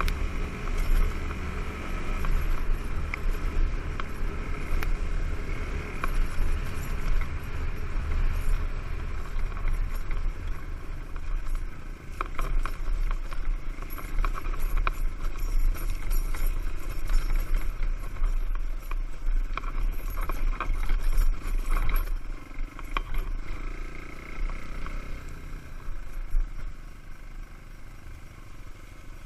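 Small single-cylinder enduro motorcycle ridden over a rough dirt forest track, its engine running under load with heavy wind buffeting on a helmet-mounted microphone and scattered clattering knocks from bumps. It goes quieter over the last few seconds as the bike slows.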